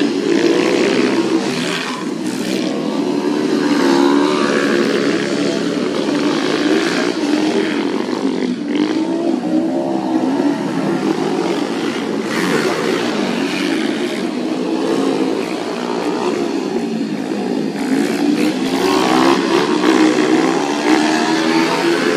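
Several small motorcycle engines revving up and down, their pitch rising and falling as the bikes accelerate and ease off, with two or more engines heard at once.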